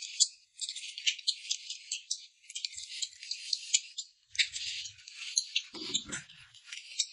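Close-miked chewing and mouth sounds of a man eating boiled dumplings: a dense run of small crackly clicks, with a lower, fuller bite sound about six seconds in.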